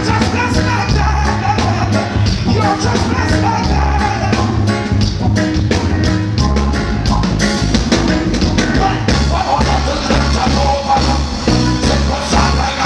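Live reggae band playing loud, with a heavy bass line, drums, guitar and keyboards, and a singer's voice on the microphone over it at times.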